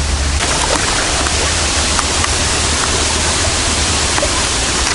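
Wind blowing over the microphone: a steady, loud rushing with a heavy low rumble.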